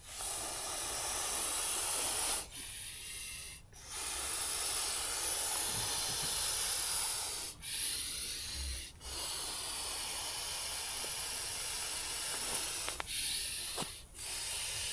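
A person blowing into the valve of an inflatable pillow by mouth to inflate it. There are three long, hissing blows of two to four seconds each, with short pauses for breath between them.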